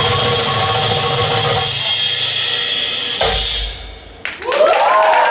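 Darbuka-led percussion music ends on a single hard low hit about three seconds in, then audience applause and cheering break out near the end.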